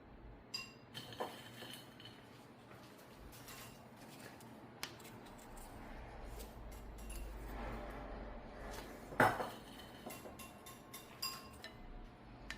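A spoon and dishes clinking: scattered light clinks, some ringing briefly, with one louder knock about nine seconds in.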